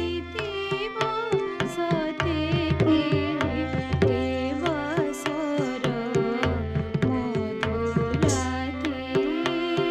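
Odissi dance music for a Pallavi in raga Kalawati: an ornamented melody that glides and bends over a steady drone, with quick drum strokes throughout.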